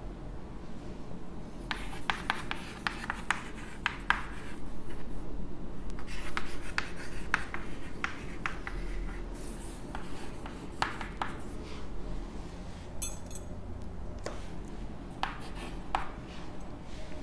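Chalk writing on a blackboard: clusters of short sharp taps and scratching strokes as letters and numbers are written.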